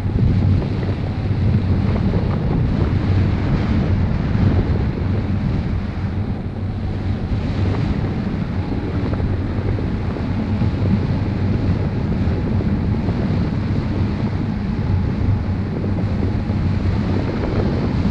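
Airflow buffeting the microphone of a camera carried on a paraglider in flight: a steady, loud low rumble of wind noise.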